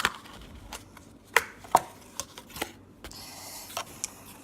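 Plastic slime containers being handled on a table: a few sharp clicks and taps, with a short rustle about three seconds in.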